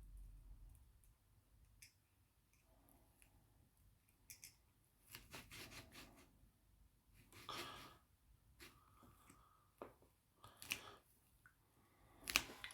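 Faint, irregular clicks and light scrapes of small hand tools handling tiny parts of a pocket watch movement during reassembly, with a louder click near the end.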